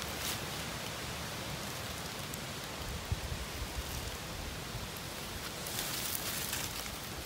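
Steady patter of rain, with an irregular low rumble under it and a brief brighter rustling hiss about six seconds in.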